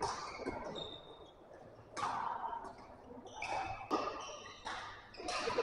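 Badminton play in a large, echoing hall: scattered sharp racket hits on shuttlecocks, a few seconds apart, with brief high shoe squeaks on the court floor.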